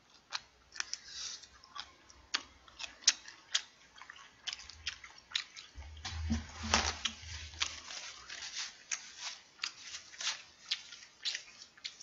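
Close-miked chewing of salt-grilled king prawns: irregular crisp, wet clicks and crunches of mouth and teeth working, with a low thump or rumble about six seconds in.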